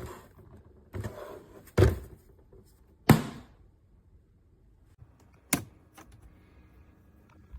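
Plastic knocks and clunks as a small thermoelectric mini fridge's door and the things inside it are handled: several knocks in the first two seconds, the loudest clunk a little after three seconds, and two sharper clicks around five and a half and six seconds.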